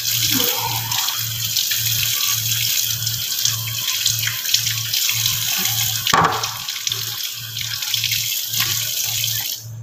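Kitchen tap running steadily onto a peeled vegetable as it is rinsed in the sink, with a knock about six seconds in. The water cuts off suddenly near the end.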